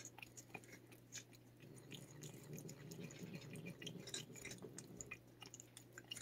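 Cat licking a Churu lickable paste treat from a squeeze tube: a fast, irregular run of small wet tongue clicks and smacks, faint.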